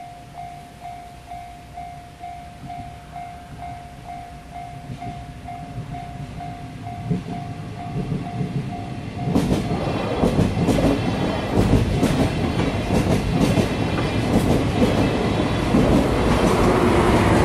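Japanese level-crossing warning bell dinging about twice a second. About nine seconds in, a Sagano Scenic Railway sightseeing train passes close by, its wheels clattering over the rail joints and growing louder, drowning out the bell.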